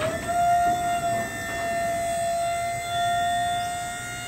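Hydraulic pump motor of a tilt car-hauler trailer starting up with a quick rising whine, then running at a steady high pitch as it tilts the deck.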